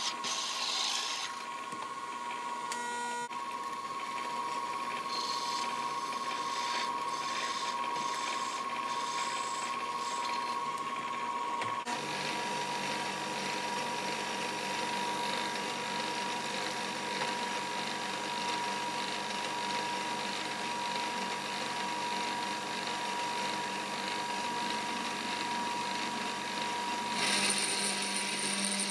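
Bridgeport milling machine's spindle running with a steady whine while a twist drill cuts through steel plate for the first dozen seconds, with irregular clicks. After an abrupt change at about 12 s the spindle runs on steadily, and near the end an end mill starts cutting the steel, louder and with a thin high squeal.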